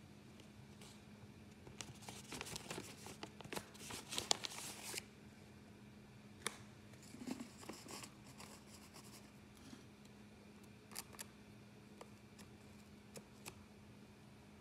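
Chemex paper filter being handled and seated in the neck of the glass carafe: faint paper rustling and crinkling, busiest a couple of seconds in, then a few light clicks and taps.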